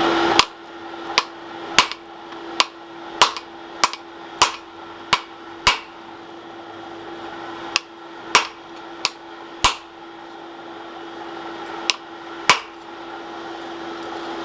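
Hand hammer striking a hot bar of curly-tine steel to straighten it: about fifteen sharp blows, roughly one every half second, in three runs with short pauses between them.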